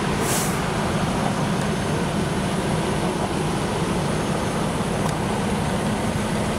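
Steady low rumble of a large vehicle engine running at the crash scene, with a brief hiss about half a second in.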